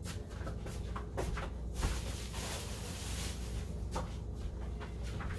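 Scattered light knocks, clicks and rustling as someone moves about a kitchen out of view, over a steady low hum.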